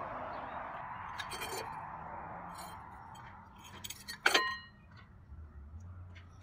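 Rusty scrap metal clinking as it is handled: a few light clicks, then one loud metallic clank with a short ring a little over four seconds in.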